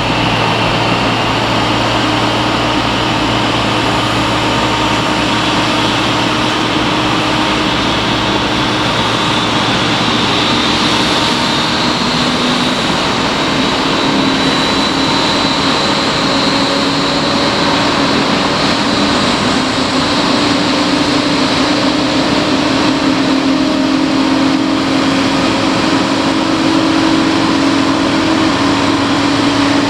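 Boeing 777-300 jet engines running, a steady loud rush with a high whine that climbs slowly in pitch and a low hum beneath.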